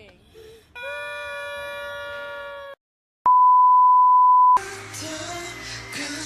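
A steady held note for about two seconds, then a brief gap and a loud, pure censor bleep lasting just over a second, cut off abruptly as pop music starts.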